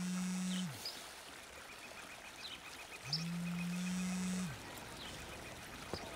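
Mobile phone vibrating in long buzzes: one ends just under a second in, and another runs from about three seconds to four and a half. Each buzz winds up in pitch as it starts and sinks as it stops. Faint birdsong chirps around it.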